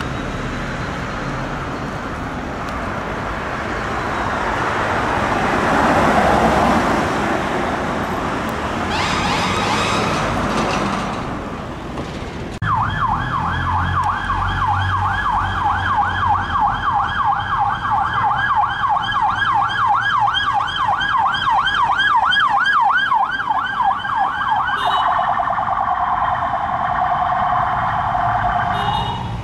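A vehicle passes close at speed, its noise swelling to a peak about six seconds in. Then a police car siren sounds in a fast yelp, sweeping up and down about three times a second, and switches near the end to a different, lower tone.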